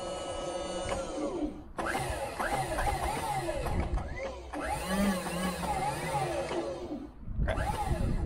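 A steady mechanical hum that winds down about a second in, then a run of squeaks sliding up and down in pitch, broken by short pauses: metal creaking and squealing from the hoist rig under the heavy hanging wheel weight.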